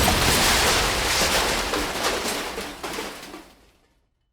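A sudden loud explosion-like blast that rumbles and crackles, then fades away over about three and a half seconds into silence.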